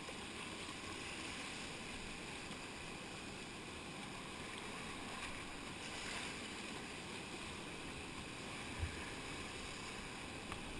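Rushing whitewater of a river rapid, a steady churning rush heard from a kayak in the middle of it. One low thump comes about nine seconds in.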